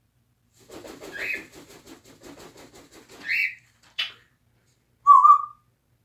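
African grey parrot vocalising: a rapid stuttering, rattly run of sounds with short whistle notes over it, then a single smacking click, then one short loud whistle near the end.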